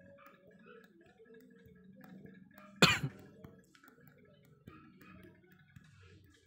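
A single sharp cough about three seconds in, over faint background hum.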